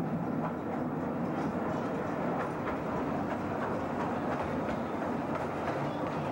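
Narrow-gauge mine tramway train, a small locomotive hauling open passenger cars, running steadily along the track. A continuous rumble with scattered clicks of the wheels over the rails.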